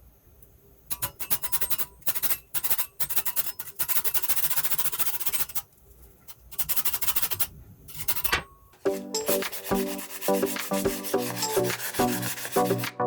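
Wood being sanded by hand, with runs of rubbing strokes broken by short pauses. About nine seconds in, music with a bass line starts.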